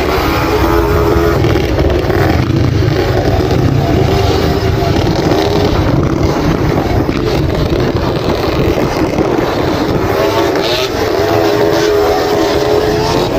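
Dirt bike engines running on the move, the nearest engine's pitch wavering up and down with the throttle over a low, rough rumble.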